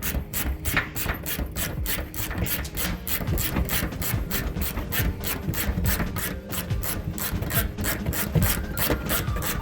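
Hand ratchet wrench being worked, clicking steadily at about four to five clicks a second.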